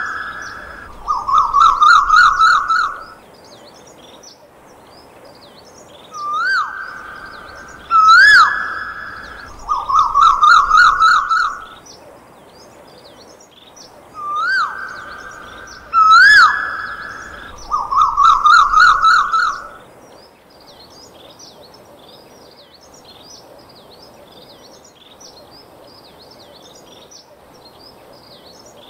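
Electronic bird-call sound from a baby walker's musical toy tray: a rising whistle and a held note, then a warbling trill, played three times about eight seconds apart. It stops about twenty seconds in, leaving only faint high chirping.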